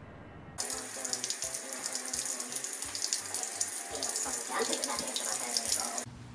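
Tap water running into a sink, the stream splashing off a cat's plastic cone collar. The steady rush starts suddenly about half a second in and cuts off just before the end.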